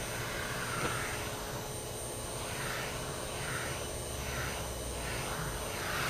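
Vacuum cleaner running through a pet-grooming brush attachment, sucking loose hair out of a Persian cat's coat. A steady whoosh whose pitch dips and rises over and over as the brush head works through the long fur.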